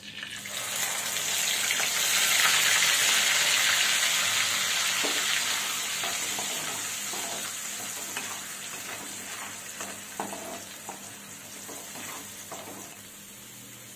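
Wet ground masala paste hitting hot oil in a kadai: a loud sizzle that starts about half a second in and slowly dies down. A spatula scrapes and stirs the paste through the second half.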